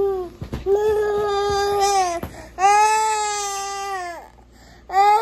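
A toddler boy crying in a string of long, drawn-out wails, each held at a steady pitch, after being told he can have no more cookie.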